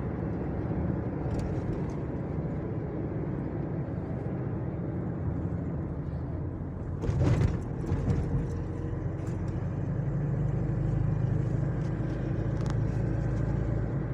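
Steady rumble of a motor vehicle travelling on the road, with a short louder swell about seven seconds in.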